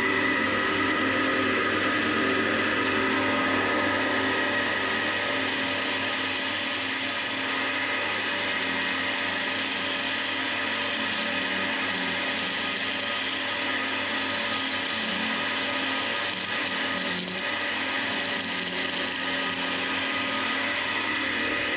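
Wood lathe running with a steady motor hum while a carbide hollowing tool cuts inside a spinning vase of old, dry chestnut, a continuous scraping cut.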